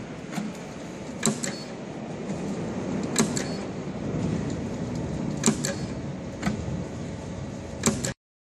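SAVEMA feeder-conveyor belt with an SVM 32I thermal transfer overprinter running steadily, with a sharp click every one to two seconds as the machine cycles on each carton. The sound cuts off abruptly near the end.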